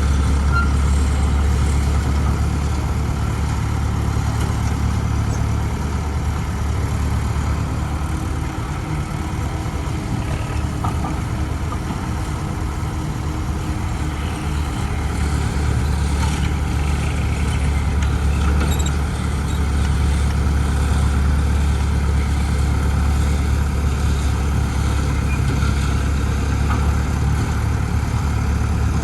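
Steady low drone of a running vehicle engine, dipping slightly in level partway through.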